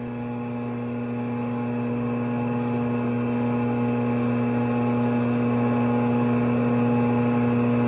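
Crankshaft grinder running, a steady motor hum from the spinning grinding wheel that grows gradually louder as the wheel is fed in toward a crankshaft journal.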